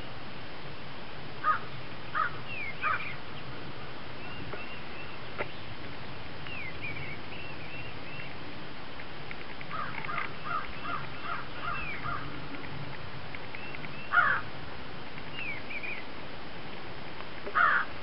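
Birds calling in an open field: clusters of short, repeated calls, with a quick run of about eight in the middle and the loudest pair at the end, and thinner chirps between.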